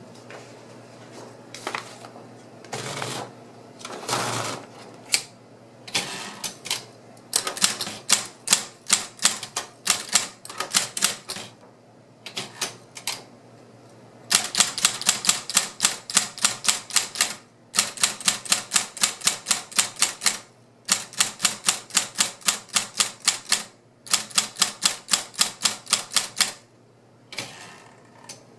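Royal Apollo 12 GT electric typewriter being typed on. It starts with a few scattered keystrokes and two half-second mechanical sounds, then moves into runs of rapid keystrokes, about eight to ten a second, each run lasting two to three seconds with short pauses between.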